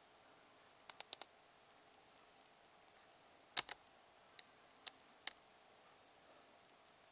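Laptop keyboard keys and buttons clicking: a quick run of four keystrokes about a second in, a louder double click in the middle, then three single clicks, while a short comment is typed and sent.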